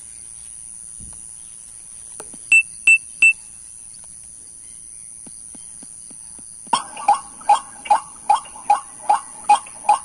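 Three short electronic beeps from a portable MP3 bird caller, then, from about seven seconds in, the caller playing a recorded white-breasted waterhen call: a steady run of loud, repeated notes, about two and a half a second.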